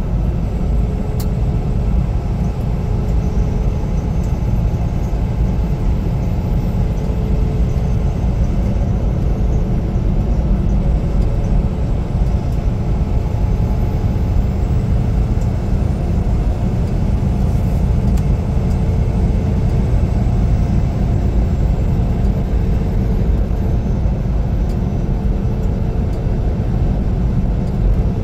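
Semi-truck running steadily down the road: a constant low engine and road rumble with a faint steady hum above it.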